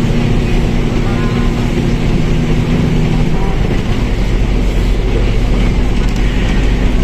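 Mercedes-Benz OF1721L bus running on the road: a steady diesel engine drone with road noise, its engine note dropping and changing about three and a half seconds in.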